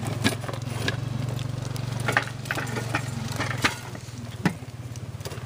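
Climbing tree stand's metal frame giving sharp, irregular knocks and clanks as it is worked on the trunk. Under them runs a steady low engine hum, like an idling engine, which fades about four seconds in.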